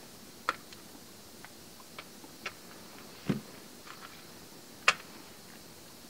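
Scattered light clicks and taps of hands handling a lapel microphone's cable and USB-C plug. There is a duller thump about three seconds in, and the sharpest, loudest click comes about five seconds in.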